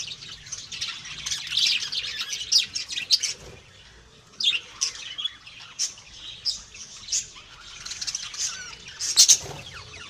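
Budgerigars chirping and chattering in quick, sharp, high calls, with a short lull about three and a half seconds in.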